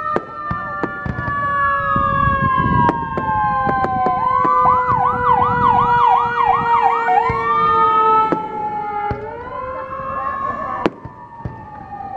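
Several whistling fireworks shrieking at once, their long whistles overlapping and gliding slowly in pitch. One of them warbles rapidly up and down for a few seconds near the middle. Sharp cracks and pops break in throughout.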